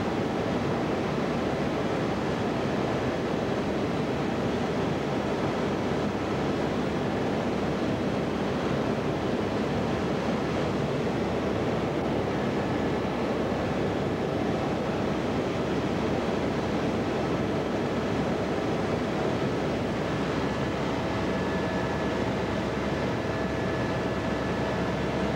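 Steady engine and wind noise in the cabin of a small aircraft in flight. A faint high steady whine comes in about halfway through.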